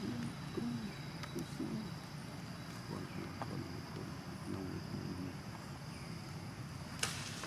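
Quiet background ambience: a steady low hum and faint high whine, with scattered soft, indistinct vocal sounds and one sharp click about seven seconds in.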